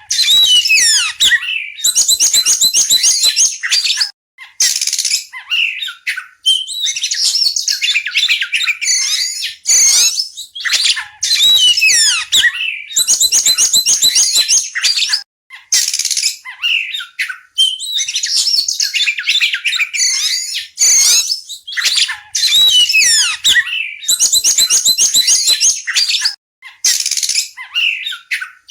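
Oriental magpie-robin singing loudly and almost without break: varied whistled phrases and fast runs of rapidly repeated notes, separated by short pauses.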